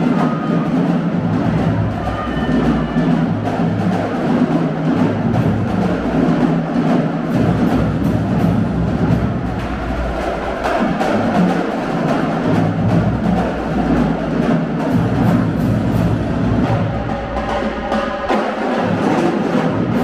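Marching band playing: a drumline keeping a dense, driving beat under a low brass line of sousaphones and horns.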